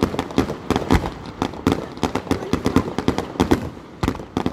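Fireworks going off in quick succession: a steady stream of sharp bangs and crackles, several a second.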